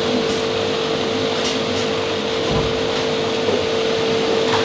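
Automatic multi-nozzle liquid bottle-filling machine running: a steady hum with a constant tone, broken by about five short, high hisses from its pneumatic cylinders.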